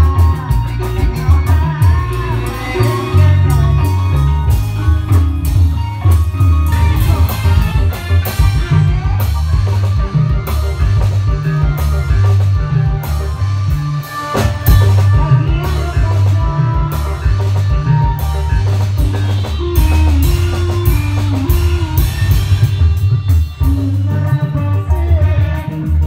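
Loud amplified reog bleknong band music with a heavy booming bass line, drum kit beats, guitar and singing.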